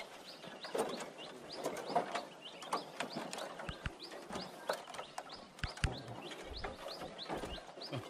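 A small bird calling over and over, a quick series of short rising chirps about three a second, with a few faint knocks in between.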